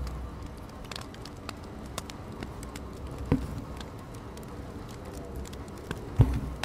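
Hand embroidery: a needle pierced through fabric stretched taut in a wooden hoop and floss drawn through, giving soft ticks, taps and rustles, with louder knocks about three seconds in and near the end.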